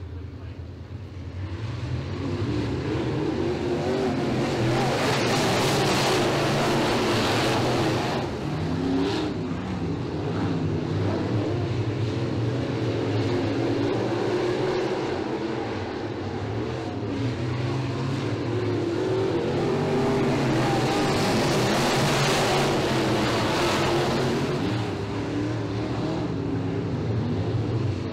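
A pack of dirt-track promodified race cars running their V8 engines around the oval. The sound builds in the first two seconds, then swells twice as the field passes close by, about five seconds in and again past the twenty-second mark.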